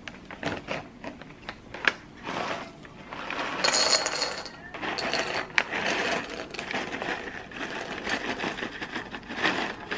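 Plastic snack pouch crinkling as it is opened and tipped, then dry crunchy snack sticks rattling steadily into a bowl from about halfway in.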